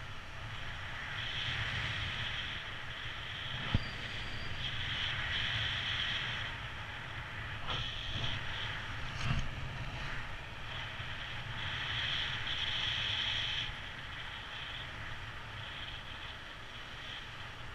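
Airflow buffeting the camera microphone of a paraglider in flight: a steady low rumble under a higher airy hiss that swells and fades several times. A single sharp click comes a few seconds in.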